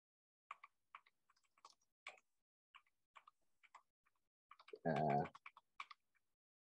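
Faint, irregular computer keyboard and mouse clicks from paging through presentation slides. A short voiced hum comes about five seconds in.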